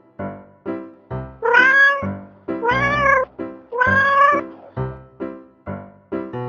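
A cat meowing three times, each meow about half a second long and rising then falling in pitch. The meows sound over background music of short plucked keyboard notes.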